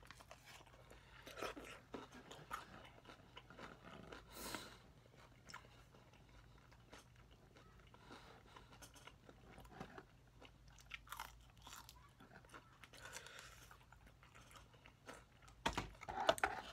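Close-up chewing and crunching of crispy fried chicken: Kyochon Honey Combo's honey-glazed wings and drumettes, in irregular bites, with a louder burst of noise near the end.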